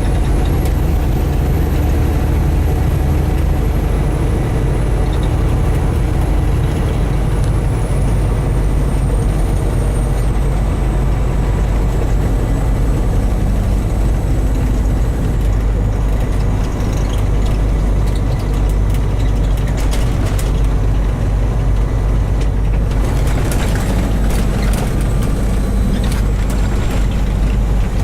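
Heavy truck's engine running steadily, a deep even drone. About three-quarters of the way through, a hiss with scattered clicks and rattles joins it.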